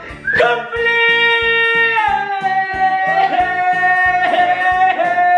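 Music: a singing voice holds long notes over plucked guitar with a steady beat, the melody stepping down about two seconds in.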